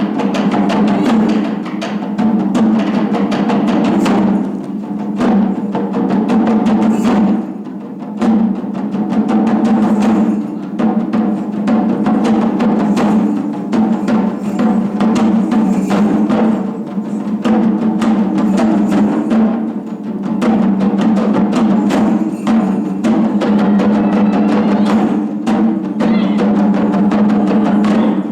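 Japanese taiko drums played by an ensemble, a dense, continuous run of strikes with a deep, booming body.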